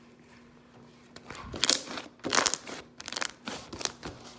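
Thick speckled slime being stretched and squished by hand, giving a handful of short crackly squishes that start about a second and a half in.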